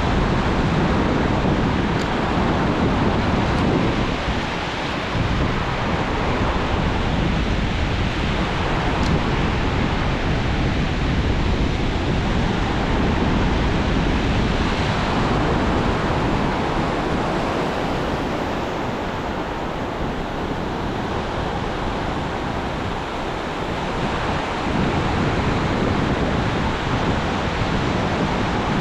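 Ocean surf breaking and washing up the beach, a steady roar that swells and eases, with wind rumbling on the microphone.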